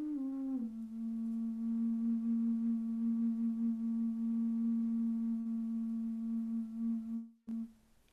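A flute playing a short descending phrase that settles into one long held low note, which breaks off about seven seconds in, sounds briefly once more and stops.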